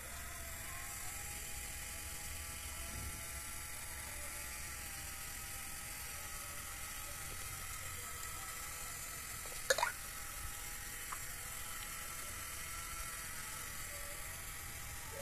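Small Tamiya-type DC motor in a homemade mini fogging machine whirring steadily, with one sharp click about ten seconds in.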